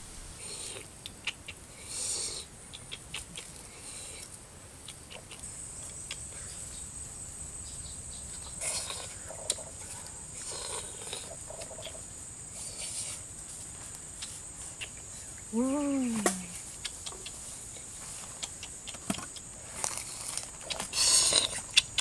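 Outdoor rustles and small crackles of handling, under a steady high insect whine for several seconds mid-way. A single short call that rises then falls comes a little before the middle, and louder rustling bursts come near the end.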